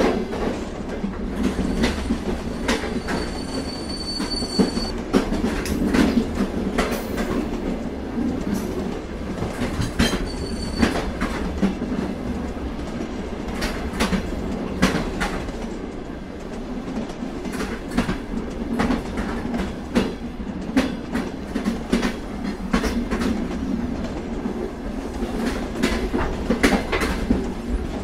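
Freight train cars rolling past in a steady rumble, with irregular clanks and clicks from the wheels and couplers. A thin high wheel squeal rises over it for about two seconds a few seconds in, and again briefly near the middle.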